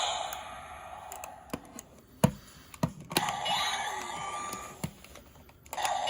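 Kamen Rider Ex-Aid Bugvisor toy being worked by hand: several sharp plastic clicks from its buttons and grip, then its electronic sound effects play from the toy's speaker about three seconds in and again near the end.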